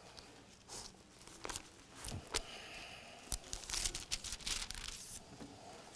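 Thin Bible pages being leafed through, a run of soft, irregular paper rustles and crinkles that dies down shortly before the end.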